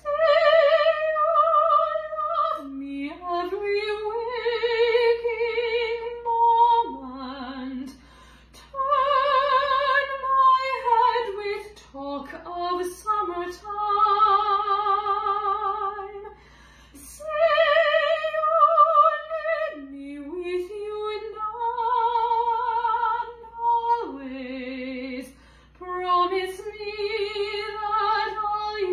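A woman singing a lyrical soprano ballad line in musical-theatre style, with strong vibrato on long held notes, in phrases of a few seconds with brief breaths between.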